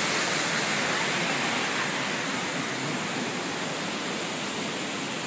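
Steady rush of a heavy waterfall and river: an even hiss of falling water with no breaks.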